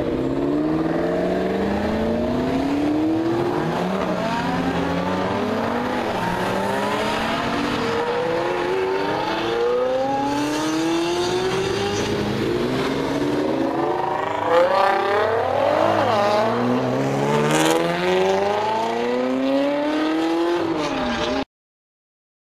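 Supercar engines, an Audi R8 and then a Lamborghini Diablo roadster's V12, accelerating away hard. The note climbs in repeated rising runs, dropping at each gear change. The sound cuts off abruptly near the end.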